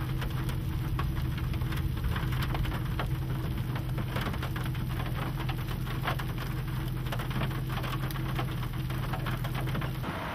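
Scattered raindrops striking nearby surfaces as many separate sharp ticks, over a steady low hum that stops abruptly near the end.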